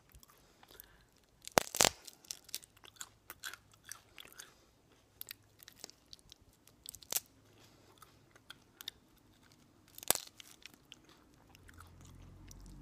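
A person chewing the midsection and wings of a grasshopper: scattered crisp crunches of the insect's shell between the teeth. The loudest crunches come as a pair about two seconds in and once more near ten seconds.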